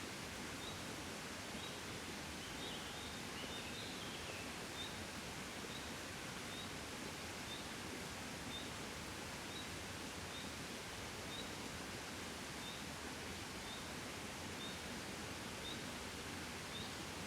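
Gentle wind blowing as a steady, even hiss. A faint high chirp repeats about once a second, with a brief twittering about three seconds in.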